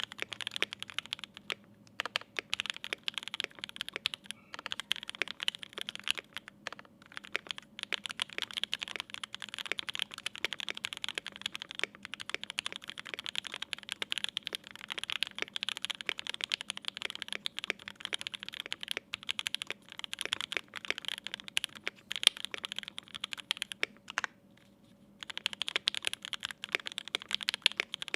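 Continuous typing on a Mode Eighty mechanical keyboard with 43 Studio Toy switches lubed with Krytox 205g0 on an FR4 plate, with GMK keycaps: a fast, steady run of key clacks. It stops for about a second near the end, then resumes.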